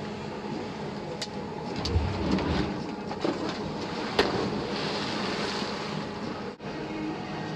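Skis running down a plastic-matted water-jump ramp with a steady rumble and clatter, heavier about two seconds in, then sharp knocks and a spray of splashing as the freeskier comes off the kicker and lands in the pool.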